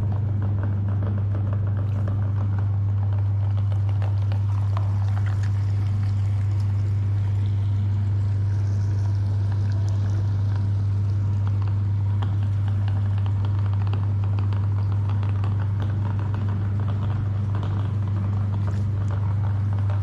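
Electric meat grinder running steadily with a loud, even low hum and a fine crackling texture over it as it grinds jelly.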